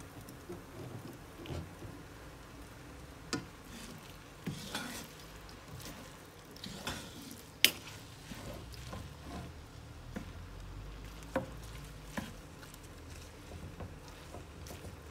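Wooden spatula stirring and scraping minced bopis around a nonstick frying pan, with irregular knocks against the pan, the sharpest a little past halfway. The pork-offal mixture sizzles softly underneath.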